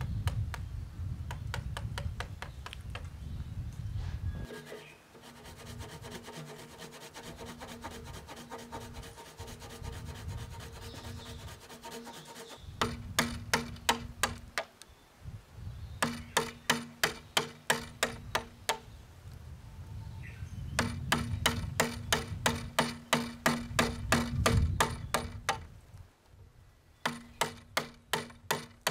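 Steel chisel being driven into an old chestnut beam by quick, even taps, about three to four a second, in runs with short pauses, while cutting a Japanese scarf joint. The first few seconds are a rougher rubbing scrape of wood before the taps begin.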